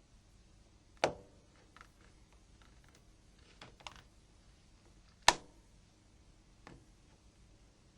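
Plastic snap-fit clips of a Nokia 6600's front (A) cover clicking free as a plastic pry tool is worked around the edge: two sharp clicks about four seconds apart, with fainter ticks between and after.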